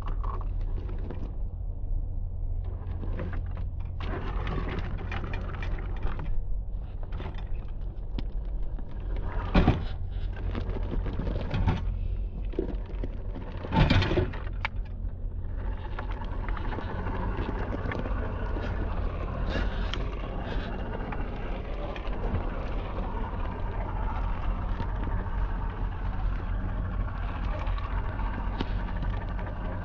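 Radio-controlled scale crawler's motor and drivetrain running as it crawls slowly over dirt and rubble, with a steady low hum underneath. Two sharp knocks come about ten and fourteen seconds in, and the noise grows fuller from about sixteen seconds on.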